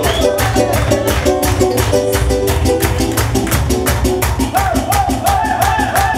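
Lively dance music from a live band with a fast, steady beat. About four and a half seconds in, a melody line with a wide vibrato comes in over it.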